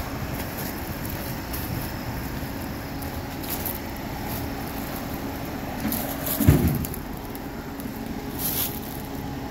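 Steady low hum of an idling car engine, with faint crackling and rustling and a short low thud about six and a half seconds in.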